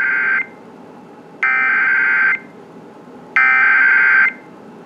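Emergency Alert System SAME header data bursts: a harsh two-tone digital buzz. The end of one burst is heard, then two more about a second apart, over faint radio hiss. They announce the start of an emergency alert, here a flash flood warning.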